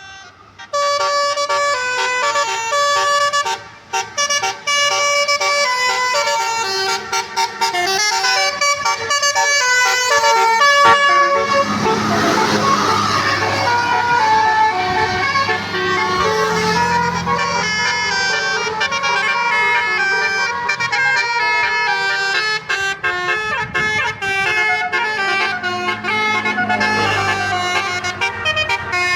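Tour bus basuri horn playing a tune of quick, changing notes. About eleven seconds in the bus's engine and road noise swell as it passes, then fade while the horn melody carries on.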